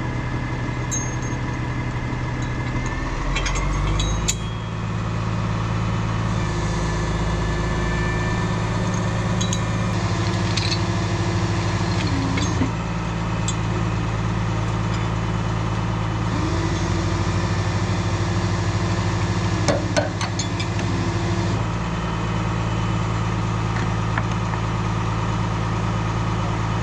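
Tow truck engine running steadily, its speed stepping up about four seconds in, with a few sharp metallic clinks.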